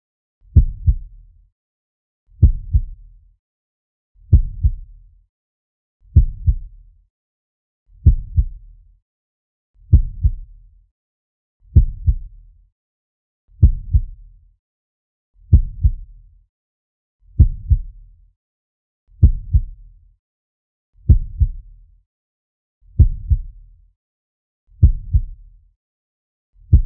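Slow heartbeat sound effect: a pair of low thuds (lub-dub) repeating steadily about every 1.8 seconds, each beat trailing off quickly.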